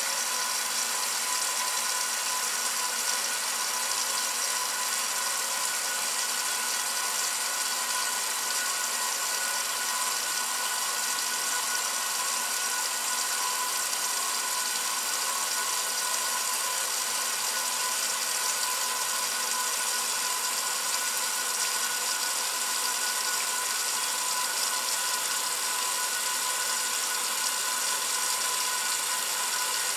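1968 Kenmore top-loading washer filling for a warm wash: water sprays into the tub with a steady rush and a few steady whining tones over it, with no agitation yet.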